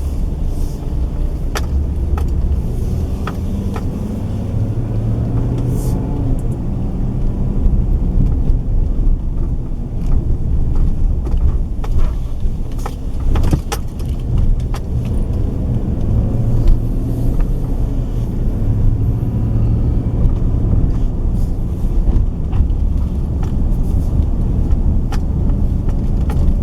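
Car driving, heard from inside the cabin: a steady low engine and road rumble with scattered small clicks and rattles.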